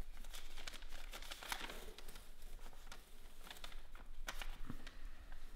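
Paper rustling and crinkling as a folded letter is opened out by hand, in a series of short crackles.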